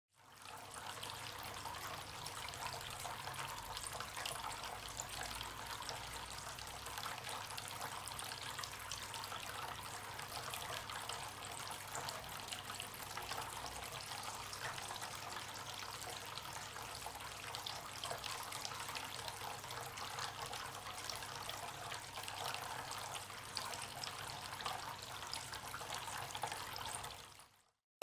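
Small terracotta tabletop fountain running: a thin stream of water falls from a clay pot's spout into a clay bowl and basin with a faint, steady trickle. It cuts off abruptly near the end.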